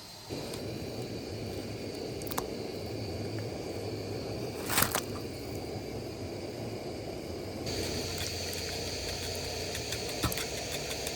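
Steady rushing noise of flowing water, starting suddenly about a third of a second in, with a brief louder burst near the middle and a high steady hiss joining about two-thirds of the way through.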